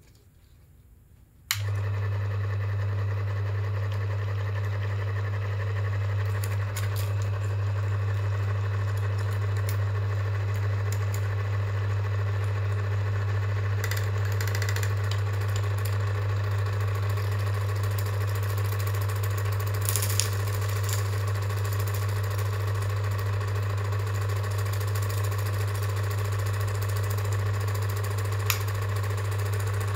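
Kodak Instamatic M66 Super-8 film projector switched on about a second and a half in, its motor and fan then running steadily with a strong low hum. A few sharp clicks come now and then.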